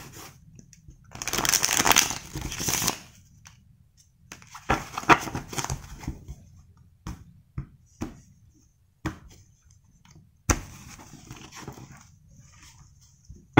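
A deck of tarot cards being shuffled by hand: a dense rustling rush of cards for about two seconds near the start and again around the middle, then quieter shuffling broken by a few sharp clicks about a second apart.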